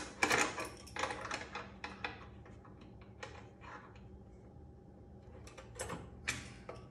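Irregular light clicks and short metallic rattles as a metal clamping bar and its hardware are handled and shifted against a T-track. There is a cluster of clicks in the first two seconds, quieter handling in the middle, and more clicks near the end.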